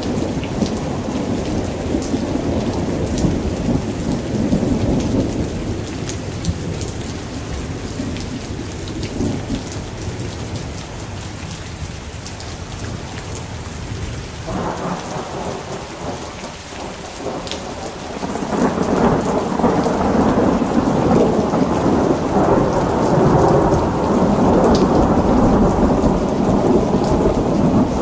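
Steady rain with rolling thunder rumbling low underneath, and scattered raindrop ticks on top. The rumble dies down in the middle and builds up again about two-thirds of the way through.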